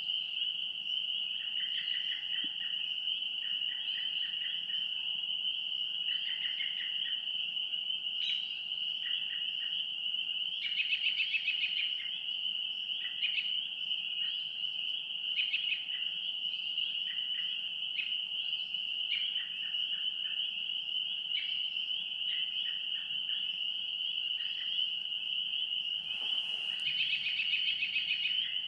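Woodland ambience: a steady high trill throughout, with short bird chirps and calls over it, some in quick repeated runs.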